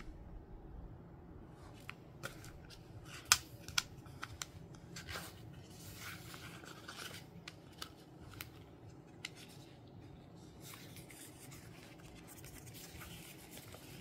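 Paper refills and the notebook's cover handled close up while the elastic cord is worked through a refill's spine: paper rustling and sliding, with scattered sharp clicks and ticks, the loudest about three seconds in. The handling quietens in the last few seconds.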